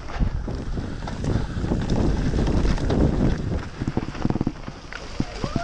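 Mountain bike descending a rough dirt forest trail, heard from a camera on the rider: wind buffeting the microphone with a steady run of knocks and rattles from the bike and tyres over the ground.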